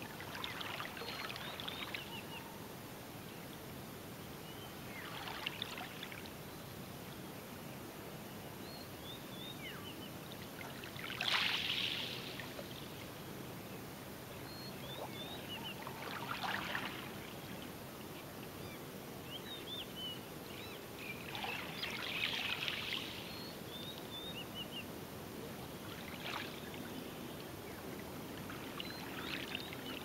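Small wavelets lapping onto the beach every four to six seconds on calm water sheltered by a coral reef, each a soft brief wash. Faint high bird chirps come in between.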